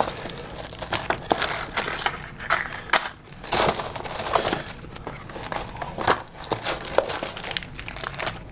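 Tissue paper and plastic packaging crinkling and rustling as lures in plastic packs are lifted out of a cardboard box, with scattered light clicks and taps as they are set down on the table.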